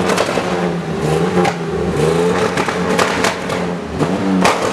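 Engine of an off-road rally vehicle running, its pitch wandering up and down slightly as it is blipped.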